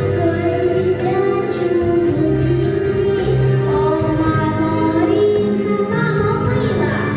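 A young girl singing a Ukrainian song over instrumental accompaniment, holding long, wavering notes.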